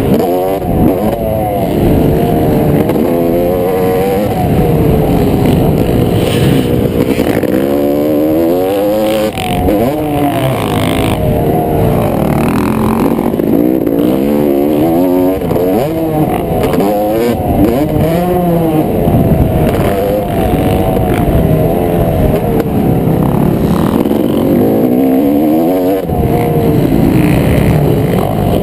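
Yamaha YZ250 two-stroke motocross engine at full race use, its pitch rising and dropping again and again as the rider accelerates and backs off around the track, heard close up from a camera mounted on the bike.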